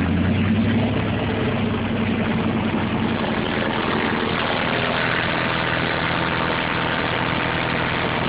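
Car engine idling steadily, a continuous low hum with no sudden change.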